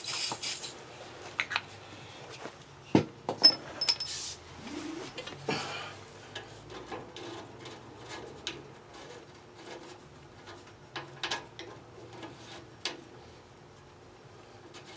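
Metal clinks and knocks of a hose coupling being handled and threaded onto an old boiler's drain valve, a few sharp knocks in the first half, then lighter scattered clicks.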